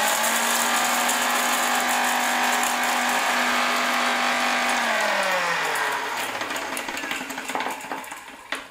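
Electric mixer grinder (mixie) running at full speed, dry-grinding roasted mustard and fenugreek seeds with cinnamon and cloves to a fine powder. About five seconds in its whine drops steadily in pitch and fades as the blade winds down.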